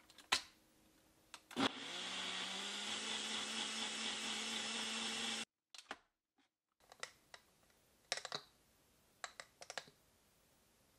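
Ninja personal blender: a few clicks as the cup is seated on the base, then the motor blends kale, apple and beet juice steadily for about four seconds and cuts off suddenly. A few light clicks and knocks follow.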